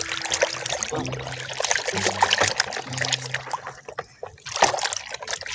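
Water splashing and sloshing in a plastic basin as a hand swishes and scrubs a plastic toy cow under the soapy water, in uneven bursts with a short lull near the end.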